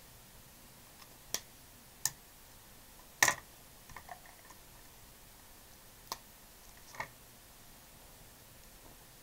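Plastic art pens being handled and set down on the work table: a handful of separate sharp clicks and taps, the loudest about three seconds in.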